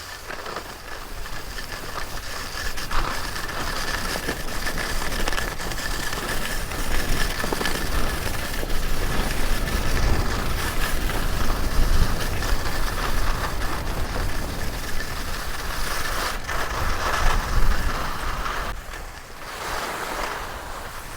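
Skis sliding and scraping over rough piste snow during a descent, a continuous rushing hiss, with wind rumbling on the microphone. It eases briefly near the end.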